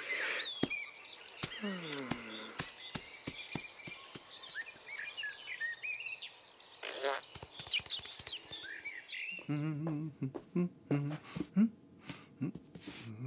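Birds chirping in the background, with short cartoon voice noises and clicks. After a scene change about nine seconds in, a hairbrush makes repeated quick strokes through a kitten's fur over a low, pulsing vocal sound.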